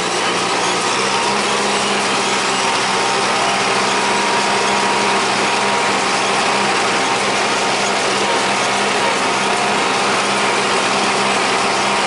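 John Deere 3020 tractor's four-cylinder engine running steadily as it pulls a John Deere 336 small square baler through a hay windrow, with the baler's mechanism working behind it.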